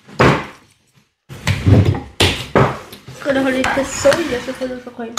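Spoons and chopsticks clinking against ceramic soup bowls during a meal, with voices talking over them. The sound cuts out to silence for about half a second about a second in.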